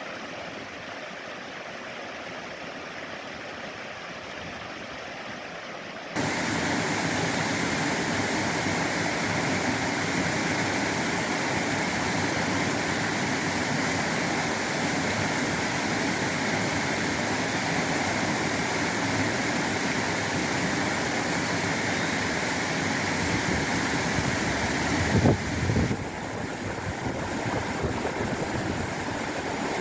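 Mountain valley stream rushing over rocks, a steady wash of water that grows abruptly louder about six seconds in. A brief thump comes a few seconds before the end.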